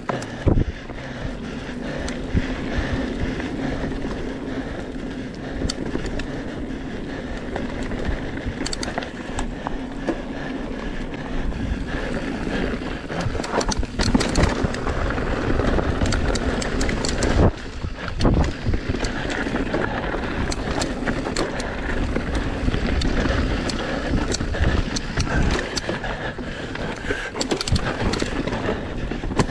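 Electric mountain bike riding fast down a dirt forest trail: a steady rush of tyre and wind noise, with frequent knocks and rattles from the bike over bumps and a few harder clunks around the middle.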